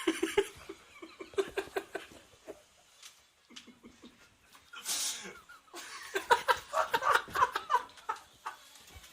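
Stifled giggling and laughter in short breathy, pitched bursts, one stretch at the start and a longer one about six seconds in.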